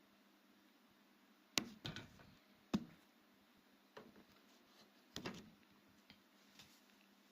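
Scattered sharp knocks and clicks of parts and tools being handled while a washing machine is taken apart, about seven in all, the loudest about one and a half and three seconds in.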